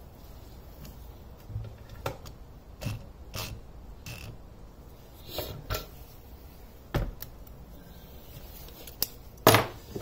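Scattered clicks and knocks of metal hand tools and small parts being handled and set down on a wooden workbench, at irregular times, the loudest about seven seconds in and shortly before the end.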